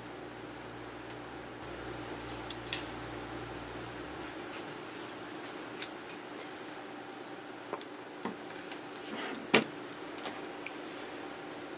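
Paper and small tools being handled on a cutting mat: scattered light clicks and taps, with one louder tap about nine and a half seconds in, over a steady background hum.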